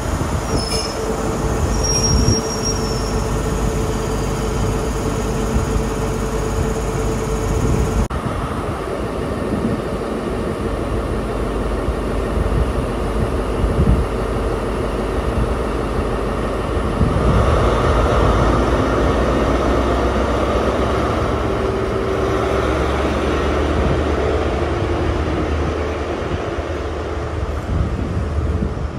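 Class 43 HST power car's diesel engine running as the train moves slowly along the platform. The sound is steady, changes about eight seconds in and grows louder about seventeen seconds in.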